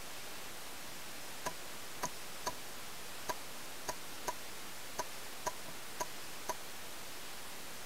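Paintball gunfire: about ten sharp pops, irregularly spaced over some five seconds, each with a brief ring, over a steady hiss.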